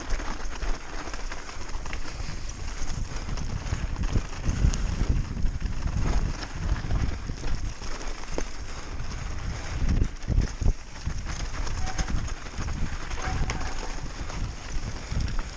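Mountain bike descending at speed over rough ground, its frame and drivetrain clattering with irregular knocks, over heavy low rumbling wind noise.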